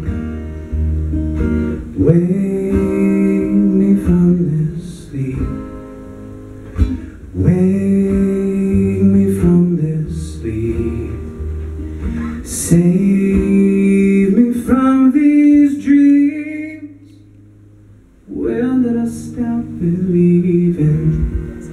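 Acoustic guitar strummed with a man singing live into a microphone. The music drops away for about a second and a half roughly seventeen seconds in, then comes back.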